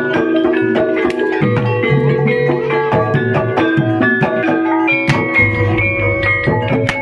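Javanese gamelan playing kuda lumping (ebeg) accompaniment: bonang kettle gongs and metallophones ring a busy, fast run of struck notes over kendang hand drums, with a deeper low part coming in about five seconds in.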